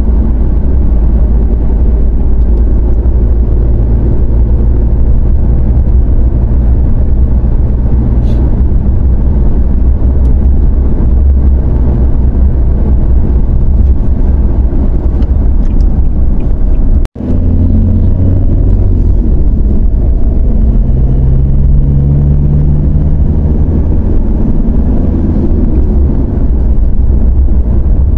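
Steady low rumble of a Toyota Hilux pickup driving at road speed: engine and tyre noise. The sound cuts out for an instant just past halfway through.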